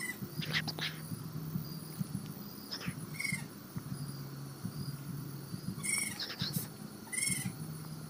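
Three short, buzzy chirps from a night-time creature, a few seconds apart, over a low steady hum, with a few light clicks near the start.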